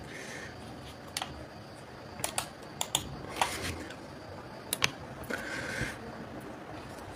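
Sparse, irregular light keyboard clicks, some in quick pairs, over quiet room tone, with a brief soft hiss a little before six seconds in.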